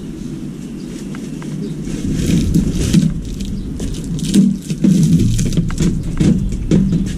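Knocks, bumps and scrapes of a white plastic appliance cabinet being tipped and turned over by hand on a concrete floor, busier from about two seconds in.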